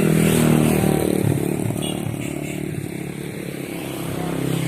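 Motorcycle engine passing by, loudest at the start and fading away, then another engine approaching near the end.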